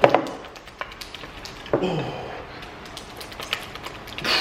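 Freshly activated glitter-glue slime being stirred by hand in a container: irregular wet squishing with many short clicks and taps of the stirring utensil against the container.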